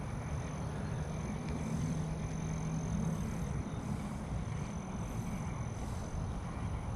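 Steady low rumble of wind buffeting the microphone, with a faint constant high-pitched whine.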